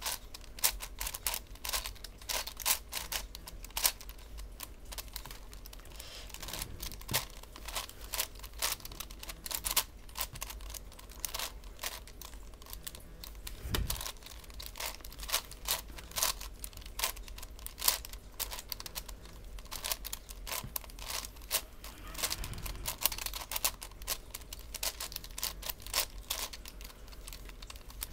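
A V-Cube 7x7x7 puzzle cube being turned by hand: a dense, irregular run of plastic clicks and clacks as its layers are twisted one after another in quick succession.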